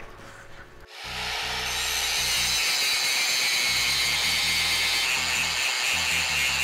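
Angle grinder starting about a second in, then grinding steadily against a thick-walled steel tube clamped in a vise, removing the bulk of the metal to rough in a taper.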